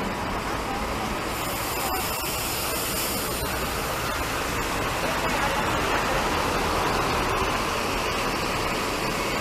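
Mercedes-Benz OH 1626 coach pulling away and passing close by, its diesel engine and tyres heard as a steady, noisy rumble that grows a little louder as it goes past.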